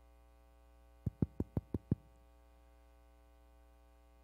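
Six quick sharp taps in a fast run lasting under a second, about six a second, over a steady electrical hum.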